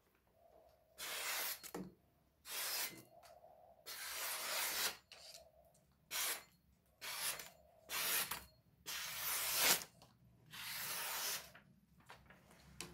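Freshly sharpened Chinese cleaver slicing through a sheet of paper in about eight separate hissing strokes: a paper-cutting test of the new edge's sharpness.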